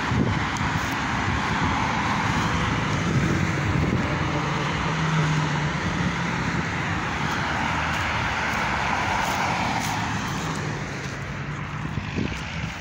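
Steady hiss and rumble of distant road traffic, with a low vehicle hum swelling about four seconds in and fading a few seconds later.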